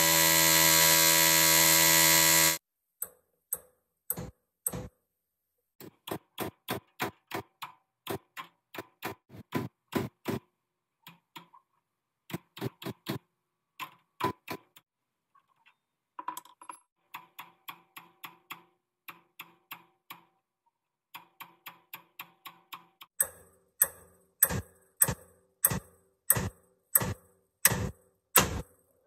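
A pneumatic air hammer buzzes steadily against the steel front suspension for about two and a half seconds, then stops. After that a hand hammer strikes the suspension over and over in quick runs of blows, each with a short metallic ring, loudest near the end.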